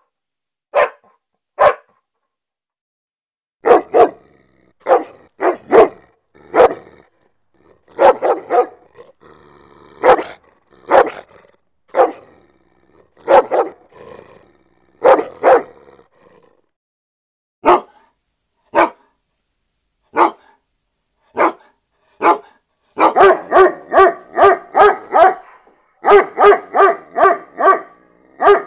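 Dog barking aggressively in sharp single barks and short groups with pauses between. Near the end come two rapid runs of barks, about four a second.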